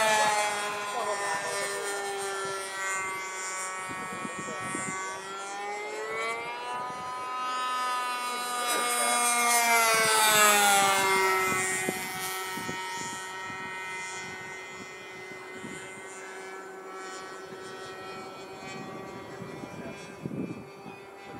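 Radio-controlled sport airplane's engine and propeller buzzing in flight, heard over a series of passes. The pitch drops as it flies away at first, climbs as it comes back, and is loudest about ten seconds in. It then falls in pitch and fades as the plane flies off.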